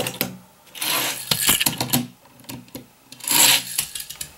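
Die-cast toy cars rolling down a plastic Hot Wheels track with a clattering rattle and sharp clicks, in two runs about two seconds apart.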